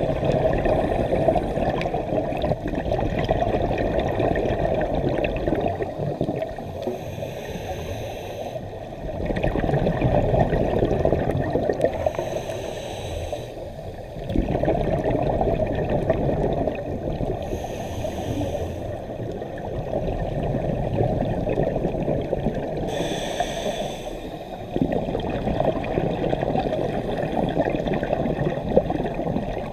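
Scuba diver breathing through a regulator underwater. Each breath is a short hiss on the inhale, then a long bubbling rush of exhaled air, repeating about every five to six seconds.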